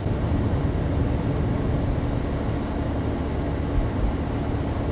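Engine and road noise heard from inside a vehicle as it drives slowly: a steady low rumble with a faint steady hum.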